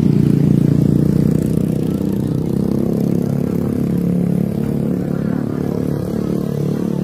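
A motor engine running steadily, a loud low drone with a constant pitch and no clear revving.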